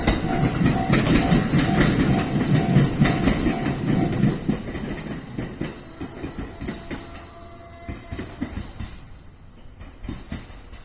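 A train on the Ou Main Line passing over a level crossing, its wheels rumbling and clattering over the rail joints. The rumble dies away over the second half as the train pulls off. A level-crossing alarm rings at about two strokes a second through the first half, then fades out.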